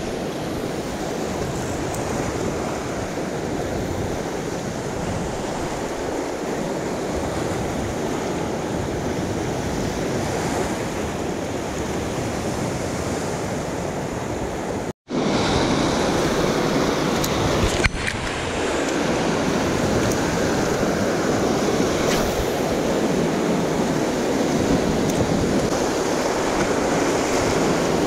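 Sea surf washing against shore rocks, a steady rushing with some wind. The sound cuts out for an instant about halfway through, and a single sharp click comes a few seconds later.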